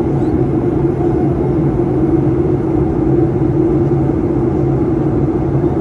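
Steady cabin drone of a Boeing 737 MAX, engine and airflow noise heard from inside the passenger cabin. It runs as an even hum with two steady tones and does not rise or fall.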